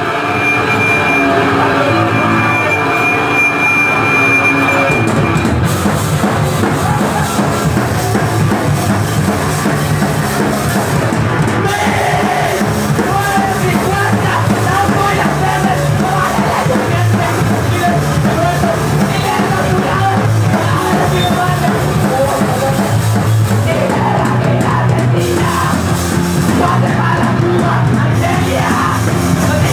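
Punk band playing live and loud, a dense, full-band wall of sound with yelled vocals. A thin, high, steady tone rings over it for the first five seconds or so.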